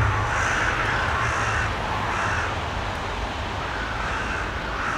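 Crows cawing harshly over and over, about one call a second, in alarm at a person intruding on their ground.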